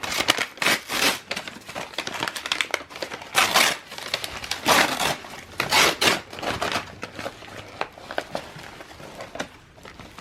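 Packing material crinkling and rustling in irregular handfuls as a shipped houseplant is unwrapped.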